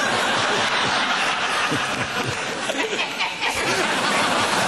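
Studio audience laughing, a dense continuous crowd laugh in response to a joke's punchline.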